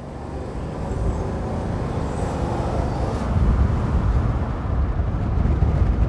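2022 Toyota Tundra pickup truck driving along a road: a low rumble of engine and tyre noise that swells gradually louder.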